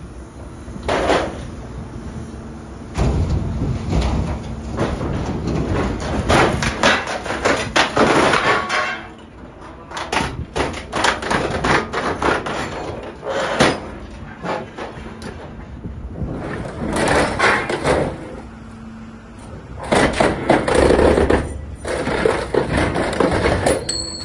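Hydraulic scrap shear-baler lid closing down on a fork truck, the truck's steel frame crumpling under it in repeated bursts of bangs, cracks and creaks over a steady machine hum.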